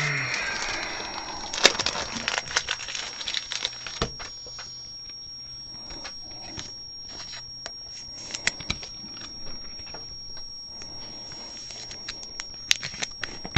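Plastic trading-card sleeves being handled to re-sleeve a card: a dense crinkling rustle with clicks for the first few seconds, then scattered light clicks and taps of the plastic.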